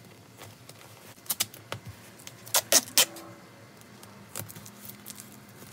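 Duct tape being pulled off the roll in a few short, sharp rips and pressed over a torn seat, with hands rustling over the foam padding and seat covering.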